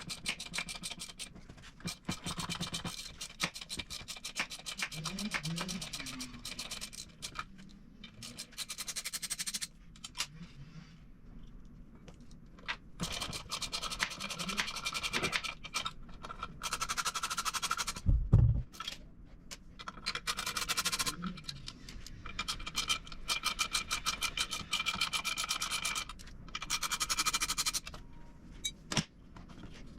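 Hand tools scratching and clicking rapidly against a chainsaw being taken apart for a muffler swap, in runs separated by short pauses, with one heavy low thump midway.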